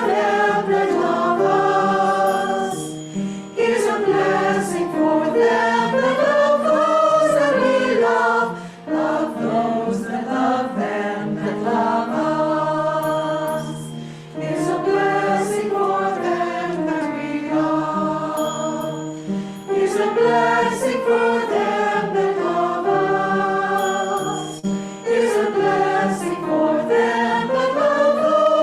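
A group of voices singing a slow song of blessing in harmony. The phrases are about five to six seconds long, with short breaths between them.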